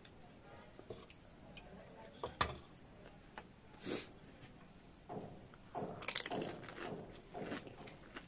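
Close-miked eating of pani puri: a sharp crunch of a crisp puri shell about two and a half seconds in, then wet, crunchy chewing with repeated bites through the second half.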